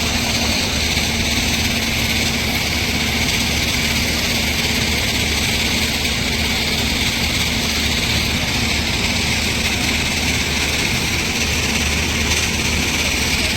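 Heavy diesel engine of a Tata Hitachi 210 LC excavator running steadily under work, a constant low drone with a steady hiss over it.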